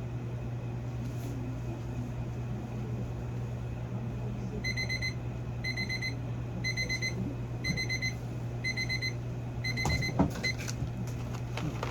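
Electronic beeper sounding an alarm: short groups of rapid beeps at one high pitch, repeating about once a second, starting about five seconds in and stopping about a second before the end.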